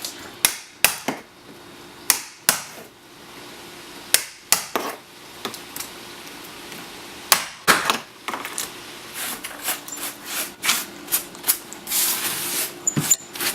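Irregular sharp knocks and taps of hand tools working in a window opening as it is cleaned and prepped, coming faster in the last few seconds, with a brief scrape near the end. A faint steady hum runs underneath.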